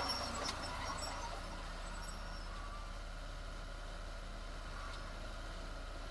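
Heavy diesel earthmoving machinery running steadily, a low engine rumble with a constant mid-pitched whine over it. A few short sharp high sounds come in the first second.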